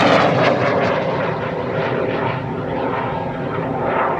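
Roar of an O5000 solid rocket motor powering the booster stage of a two-stage high-power rocket as it climbs away, heard as a steady rushing roar with scattered crackles that slowly fades.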